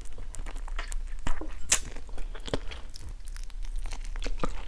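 A person biting and chewing a stir-fried frog leg close to a clip-on microphone: a run of irregular small clicks and crunches.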